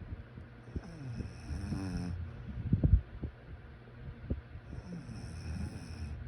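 A sleeping person snoring: two long snoring breaths in about four seconds apart, with a short, sharp breath out between them.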